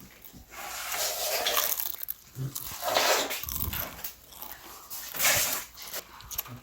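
Someone eating crackers: noisy crunching and rustling that comes in several loud bouts, about a second in, at three seconds and past five seconds.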